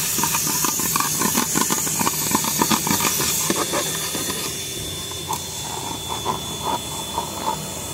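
Car wash vacuum hose running with a steady hiss and a faint high whine. Many small clicks and rattles come from the nozzle as it works over the rubber floor mat, thinning out about halfway through.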